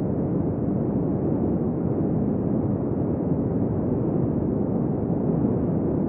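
Wind blowing steadily, a deep, even rush without gusts or whistling.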